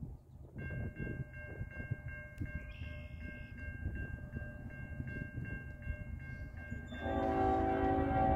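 Level-crossing warning bell ringing in quick, even strokes, starting about half a second in. About seven seconds in, the five-chime Nathan K5HL air horn of CN ES44AC 2811 starts a loud, sustained blast as the train approaches the crossing.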